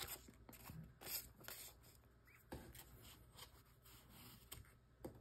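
Near silence with a few faint rustles and light clicks of small items and paper being handled.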